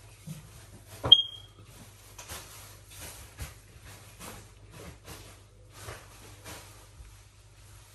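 Hands pressing and rubbing chicken pieces into dry seasoned flour on a ceramic plate: a run of soft, dry rustling strokes about twice a second, with one sharp clink against the plate about a second in.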